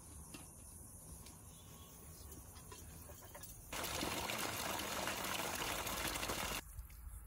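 Water running for about three seconds, starting and stopping abruptly, over a faint low rumble with a few small clicks.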